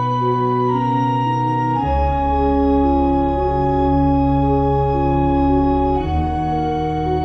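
Background music of slow, held chords over a deep bass, with the chord changing about two seconds in and again near the end.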